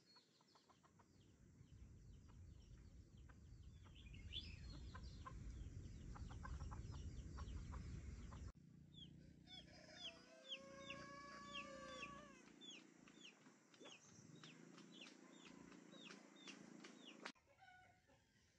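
Chickens in a farmyard: a rooster crows once, a long call about halfway through, among repeated short high chirps, with a low rumble in the first half.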